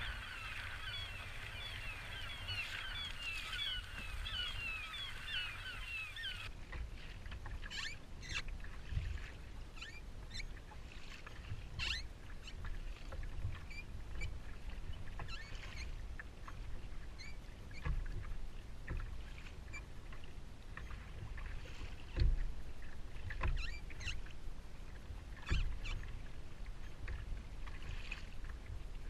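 Water slapping and splashing against a plastic kayak hull, with wind rumbling on the microphone and scattered small clicks and knocks. For the first six seconds a dense, high, chattering chirping runs over it, then stops at a cut.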